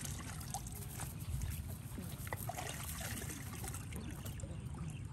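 Water trickling and splashing in small irregular drips and patters over a steady low rumble.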